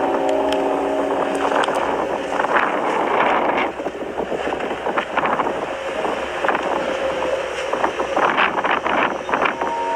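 Wind buffeting an outdoor phone microphone, with scattered crackles. Over the first second and a half a steady drone of several held tones fades out.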